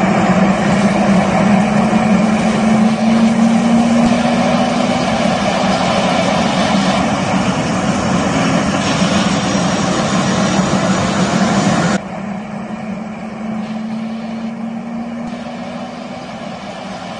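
Turbofan jet engine running steadily: a constant engine noise with a steady low tone. The level drops suddenly about twelve seconds in, then the same steady sound carries on more quietly.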